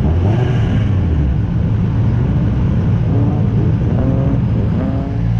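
Drift car's engine heard onboard, running hard under load, with the revs climbing in short rises several times in the second half.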